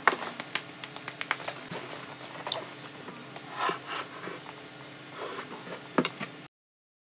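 A metal spoon clinking and scraping against a ceramic bowl of thick red bean porridge, with soft eating sounds in between, over a faint steady hum. The sound cuts out to silence near the end.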